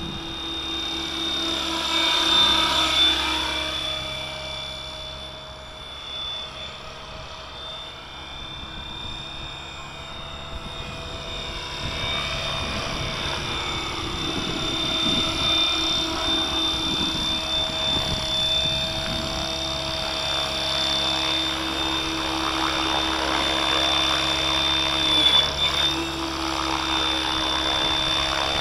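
Kasama Dune 600 radio-controlled helicopter in flight: a steady high whine from its motor and rotors, gliding up and down in pitch as it flies past and back, loudest about two seconds in and again later on.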